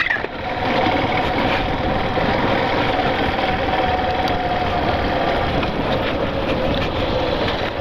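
Yamaha Factor 150's single-cylinder four-stroke engine running steadily at low speed, heard from the rider's position, with the rattle of the tyres over cobblestones.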